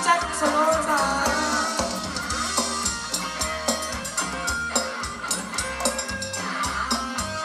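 Live band playing Thai ramwong dance music through a PA, with a steady drum-kit beat under a melody line.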